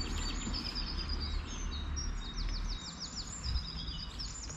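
Several songbirds singing: high whistled notes and chirps, with a quick trill of falling notes about halfway through, over a low steady rumble.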